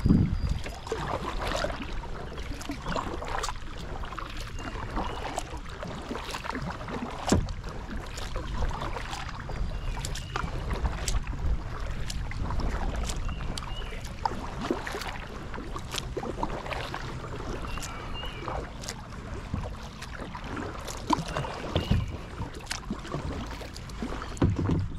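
Kayak paddling: paddle blades dipping and splashing in the river water, dripping, with occasional sharp knocks. Short bird chirps come in every few seconds.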